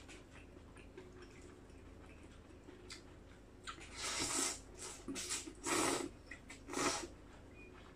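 A person slurping thin rice noodles (khanom chin) into the mouth, four loud sucking slurps starting about halfway through, after a stretch of faint small clicks.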